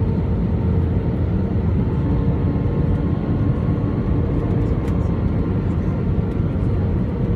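Steady cabin noise of an Airbus A319 jet airliner on approach, heard inside the cabin: the even drone of the engines and rushing air, with a steady whine running through it and a lower hum joining in for a second or so near the middle.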